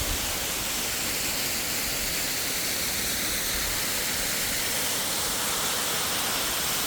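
Waterfall pouring onto rocks: a steady, even rush of water.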